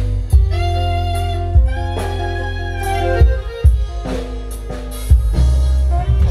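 Live dangdut band playing an instrumental passage: held keyboard notes over a heavy bass, broken by sharp drum hits every second or so.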